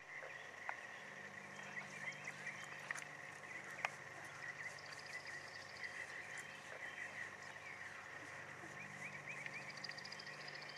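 Faint outdoor chorus of small animals: a steady mass of short chirps, with rapid high trills about five seconds in and again near the end. A faint low hum runs underneath, and a few sharp clicks stand out, the clearest nearly four seconds in.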